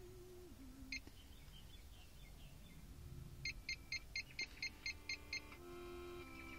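Touchscreen key beeps from an Eonon G2226D car head unit: a single short beep, then a quick run of about nine beeps at roughly four a second as buttons are tapped. Faint music from the unit starts playing near the end.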